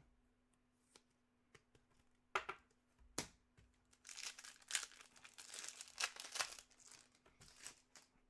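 Quiet crinkling and tearing of a foil trading-card pack wrapper being handled, with two sharp clicks about two and three seconds in before a few seconds of dense crinkling.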